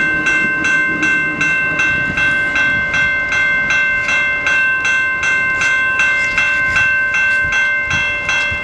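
Railway level-crossing warning bell ringing steadily, about two and a half strokes a second, while the crossing is active. A low train rumble fades out over the first few seconds.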